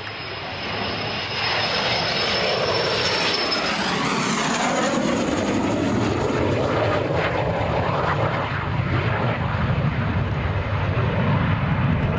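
CAC Sabre jet fighter's Rolls-Royce Avon turbojet on approach: a high whistle over rushing jet noise. It swells over the first second or two and then holds loud, the whistle shifting in pitch about four seconds in and the low rumble building toward the end.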